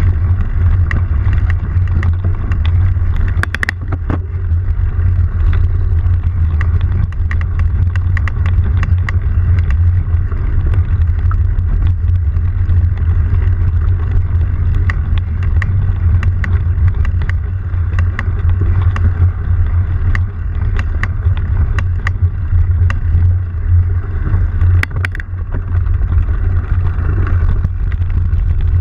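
Steady, loud low rumble of riding fast along a bumpy dirt singletrack, with frequent sharp knocks and rattles from the trail's bumps. The rumble holds much the same over the whole ride, with a harder knock about three and a half seconds in and another near twenty-five seconds.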